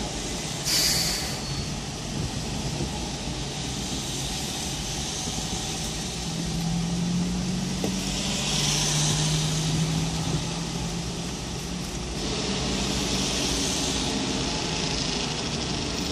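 Idling traffic heard from inside a car cabin on a wet road: a steady low engine rumble with several swells of hiss, and a low steady hum from a nearby engine in the middle.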